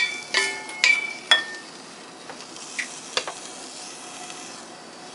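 A utensil knocking and scraping against a stainless steel saucepan as sautéed mushrooms are emptied out of it, with four ringing metal clinks in the first second and a half, then a few faint scrapes over a low hiss.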